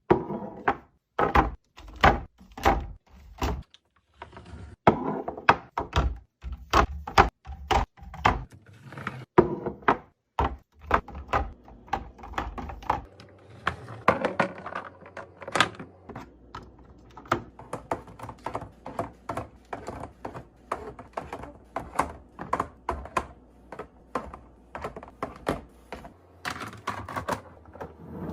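Food containers and packaging being handled and set down while a fridge is restocked: a quick run of knocks and clicks, several a second, with heavier thumps over the first eight seconds or so and lighter clicking after that.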